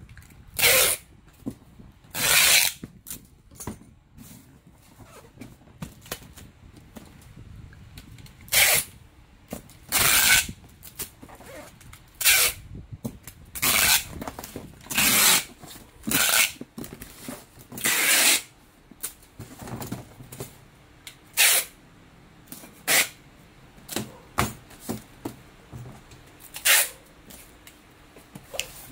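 Clear plastic wrap being pulled off a roll and wound around a cardboard box: a dozen or so noisy pulls, each under a second, at irregular intervals, with fainter rustling and scraping between.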